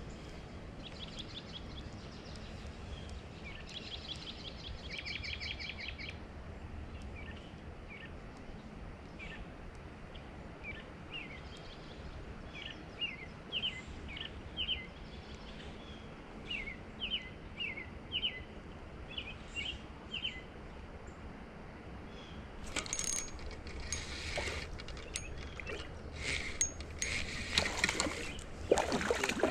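Songbirds singing: a rapid trill for the first few seconds, then a string of short chirps, over a steady hiss of flowing creek water. Near the end come louder scrapes and knocks.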